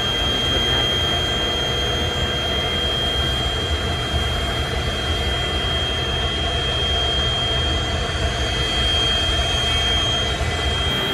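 Boeing 727's Pratt & Whitney JT8D turbofan running, heard from inside the cockpit: a steady low rumble with one thin, steady high-pitched whine over it.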